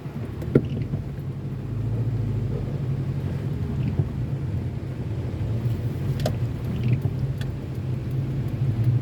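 A car driving on a wet street, a steady low hum, with a few sharp ticks scattered over it.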